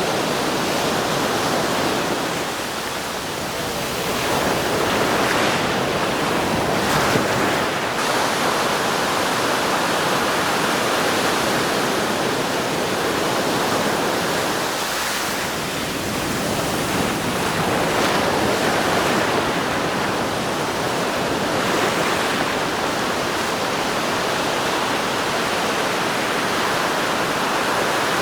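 Surf washing onto a sandy beach: a steady rush of breaking waves that eases slightly and builds again a few times.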